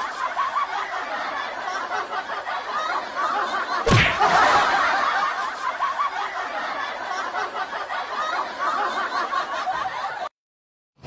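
Laughter, mostly snickering and chuckling, with a sharp bang about four seconds in; the sound cuts out abruptly near the end.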